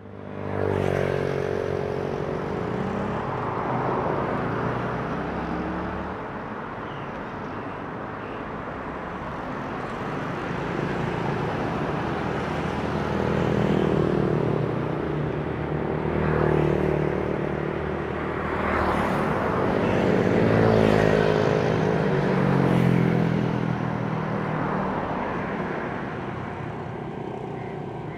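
Street traffic: cars and motorcycles passing one after another, their engine notes rising and falling as each goes by. The traffic is loudest about two-thirds of the way through.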